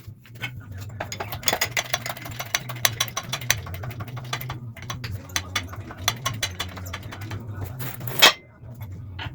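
Rapid clicking and clattering of tools at work on a truck's front end, over a steady low hum. One heavy thud comes about eight seconds in.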